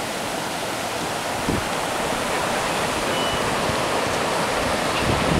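High-tide surf washing up a boat ramp and spilling across the pavement: a steady rush of water that grows slightly louder.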